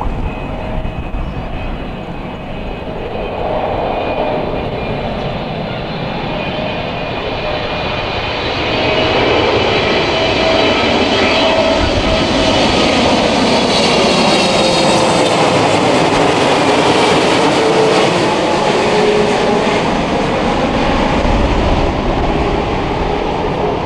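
Boeing 777 twin-engine airliner coming in low to land, its jet engines swelling to a loud rumble with a whining fan tone that slides lower in pitch as it passes, then fading a little near the end.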